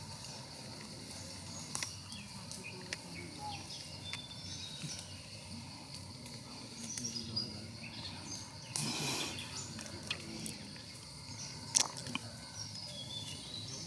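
Outdoor woodland ambience with birds chirping in short high calls. There is a brief rustling burst about nine seconds in, and a single sharp snap near twelve seconds, the loudest sound.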